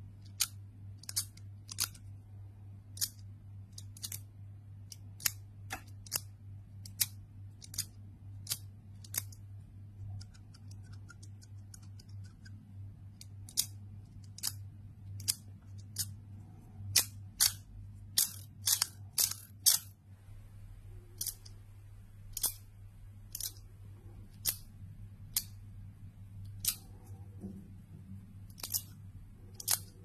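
42cosmo Life & Death Game metal slider/haptic fidget toy being worked by hand, giving sharp metallic clicks about once a second, with a quick run of louder clicks a little past halfway and a stretch of faint rapid ticking before it. A low steady hum lies underneath.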